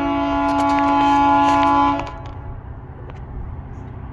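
A GO Transit commuter train's horn sounding one long chord of several steady notes, cutting off abruptly about two seconds in, over the steady low rumble of the approaching train.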